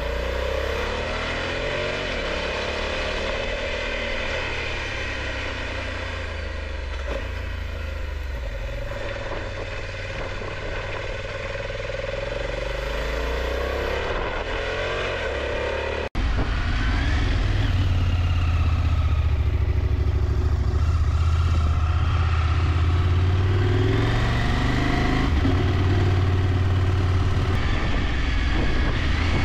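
Motorcycle engine heard from on board the bike, its pitch rising and falling as it slows for and accelerates out of hairpin corners. About halfway through the sound cuts off abruptly and comes back louder.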